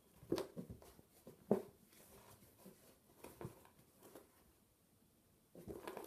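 Bengal kitten batting at and pushing its head into a small cardboard box on carpet: a few faint, irregular bumps and scratchy rustles of cardboard, the loudest about a third of a second and a second and a half in.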